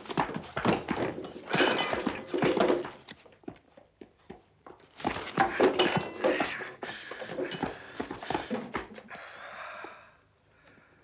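Scuffle sounds: a rapid, irregular run of thuds, knocks and clatter in two bursts of about three seconds each, dying down near the end.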